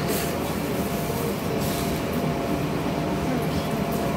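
Steady rumble and hum inside an R160 subway car with its doors closed, with a faint steady tone and a couple of brief hisses, one near the start and one about a second and a half in.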